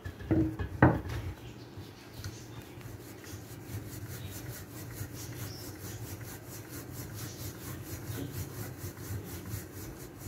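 A rolling pin rolling out a ball of roti dough, a steady rubbing that rises and falls with each back-and-forth stroke over the board. Two sharp knocks come in the first second.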